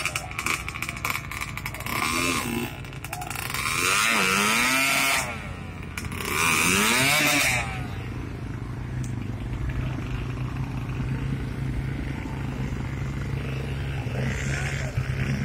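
Dirt bike engine revving hard in three bursts, the two longest about a second apart, its pitch rising and falling with each twist of the throttle, then running steadily at lower revs.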